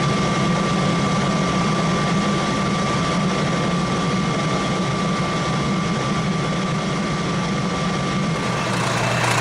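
Milling machine running steadily, a constant low motor hum with a thin high whine over it.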